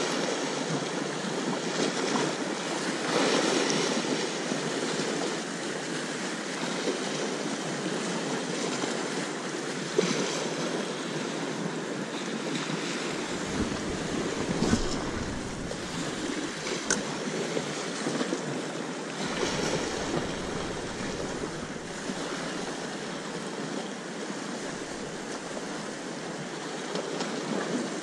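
Sea waves washing and breaking along the shore with wind, and gusts buffeting the microphone about halfway through.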